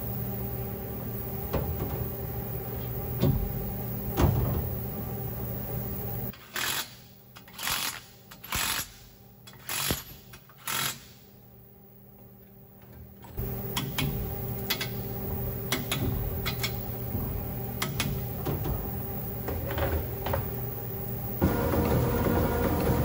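Steady hum of a cylinder-honing machine with metal clicks and clanks as a torque plate is fitted and bolted to a Ford 351 Windsor block; in the middle come about five short, loud bursts of tool noise. Near the end the hone starts working in a cylinder bore, a louder, denser buzzing run.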